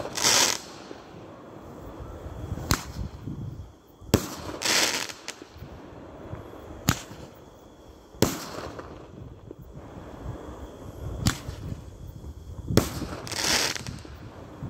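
Roman candle fireworks firing: about six sharp bangs spaced one to three seconds apart, some followed by a brief hiss.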